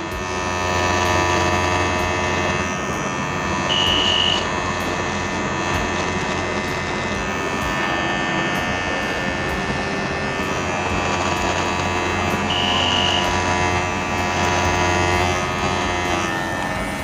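Havells BT5113C cordless beard trimmer running with a steady electric hum while it trims stubble on the cheek and neck. Two brief high-pitched tones sound over it, about four seconds in and again near thirteen seconds.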